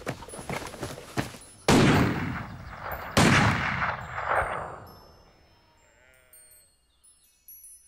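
Two loud gunshots about a second and a half apart, each with a long rumbling tail. A sheep bleats faintly a few seconds later.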